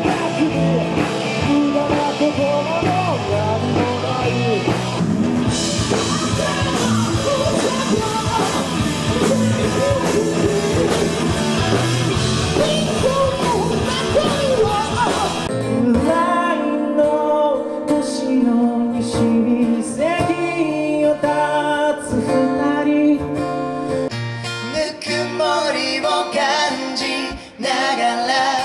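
Live band music with a lead singer, played as a string of short excerpts from different acts. The sound cuts abruptly from one performance to the next three times.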